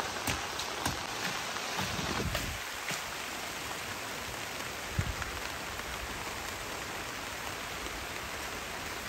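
Heavy rain falling steadily, with a few sharp taps in the first few seconds and another about halfway through.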